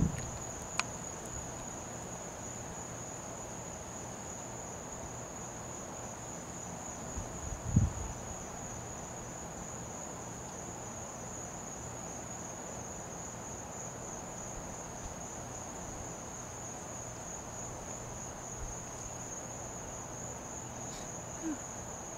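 Crickets trilling steadily, one continuous high-pitched trill, with a short low thump about eight seconds in.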